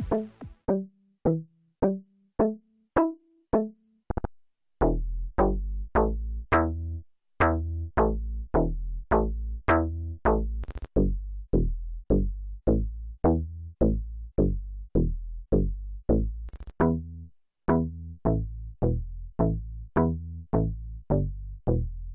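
IGNITO software synthesizer (Infected Sounds VST) playing plucked bass presets. It sounds short, clicky-attacked notes about two a second, each dying away quickly, moving up and down in pitch. From about five seconds in, a deep, heavy bass body sounds under every pluck.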